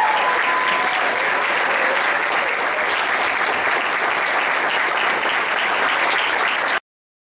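Audience of students clapping steadily, with some cheering in the first second; the applause cuts off suddenly near the end.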